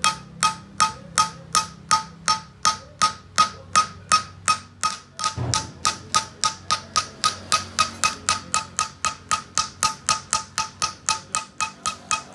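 Hand hammer striking the metal sleeve on a wooden pressure-cooker handle held against a steel block, tapping the sleeve onto the handle: a steady run of ringing metal blows, about three a second, quickening to about four a second after one duller knock about halfway.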